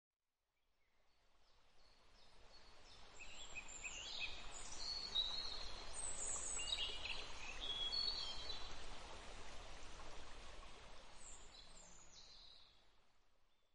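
Several birds chirping and calling over a steady outdoor background hiss. The whole ambience fades in over the first few seconds and fades out near the end.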